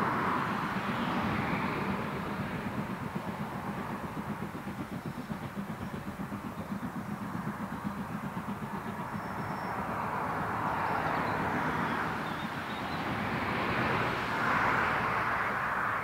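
Steam locomotive working hard as it hauls a passenger train past, its exhaust beating rapidly and regularly over the rumble of the coaches on the track.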